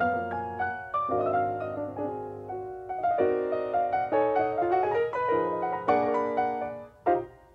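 Background piano music: a melody played over chords, with separate notes ringing and dying away, the sound falling away almost to silence near the end.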